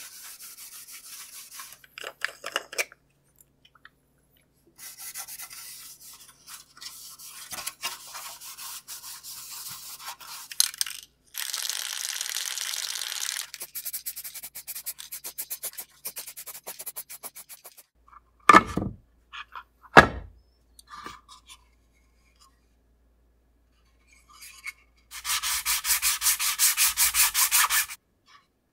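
Hand-work sounds on a carbon-fibre part: a cloth rubbing, then an aerosol can spraying clear coat in one steady hiss of about two seconds. Two sharp knocks follow, and a loud rapid rattle lasts about three seconds near the end.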